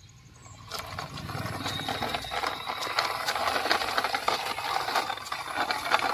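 Plastic toy dump truck pushed by hand along a rough, mossy concrete wall: its hard plastic wheels and body rattle and clatter in a dense run of small clicks, starting about a second in.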